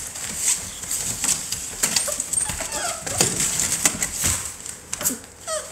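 American bully puppies wrestling in a plastic kiddie pool of wood shavings: claws scraping and shavings rustling, with a few short puppy yips and whines.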